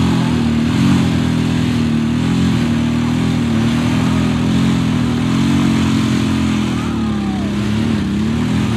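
Several motorcycle engines, a Royal Enfield among them, held at high revs under load as the bikes pull against each other on a tow rope, rear wheels spinning in the dirt. The engine pitch wavers up and down as the riders work the throttles.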